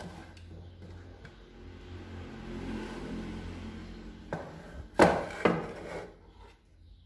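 A small amplifier box sliding and turning on a wooden desktop, a low rubbing, then three knocks as it is handled, the second, about five seconds in, the loudest.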